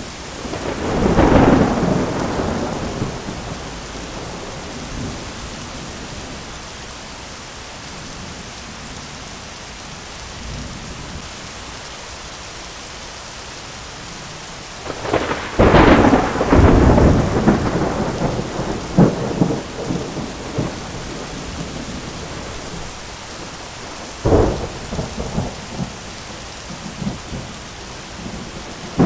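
Thunderstorm with steady rain and thunder: a rumble about a second in, a long, loud crackling roll of thunder starting about halfway through, and another sharp thunderclap with a short rumble near the end.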